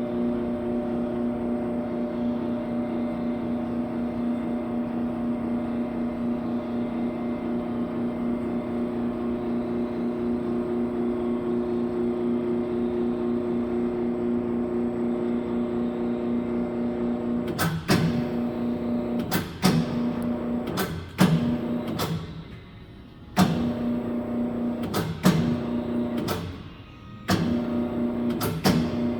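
Koike Aronson welding positioner's electric tilt drive running steadily with a pitched hum as the table tilts. About two-thirds of the way through it starts and stops repeatedly with sharp clicks, with two brief pauses, as the tilt reaches its limit switch.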